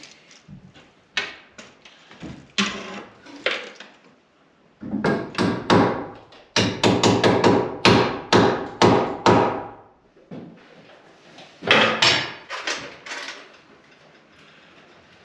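Hammer blows on wood: scattered single knocks, then a quick run of strikes at about three a second in the middle, and a few more blows a little later.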